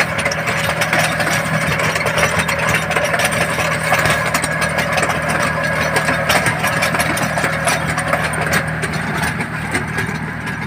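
Small 4x4 tractor's diesel engine running steadily while its rear rotavator tills the soil between rows of tall sugarcane.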